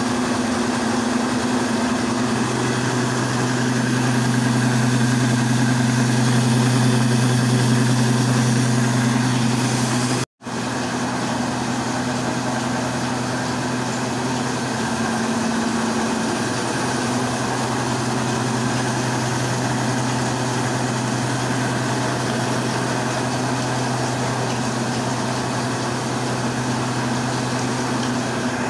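A 24-inch stone flour mill (atta chakki) driven by a 10 hp electric motor, running steadily with a constant low hum under a grinding rush. The sound cuts out for a split second about ten seconds in.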